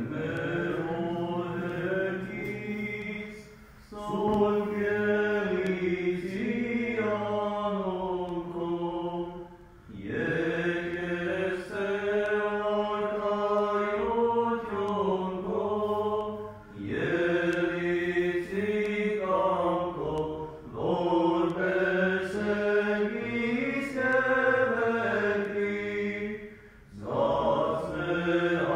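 Armenian Church liturgical chant of the requiem service, sung by clergy in phrases of four to six seconds with short pauses between.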